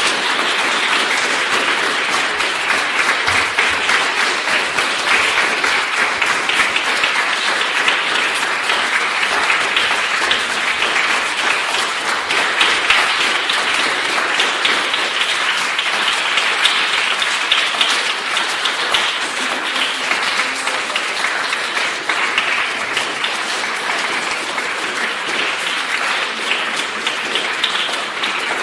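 Audience applauding, a dense, steady clapping that keeps on without a break.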